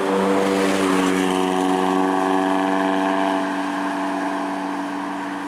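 Heavy vehicle engine running steadily under load, its drone rising slightly in pitch about a second in.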